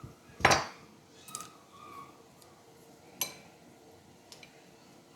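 A kitchen utensil clinking against a bowl while eggs and milk are mixed: one loud knock about half a second in, then a few lighter taps.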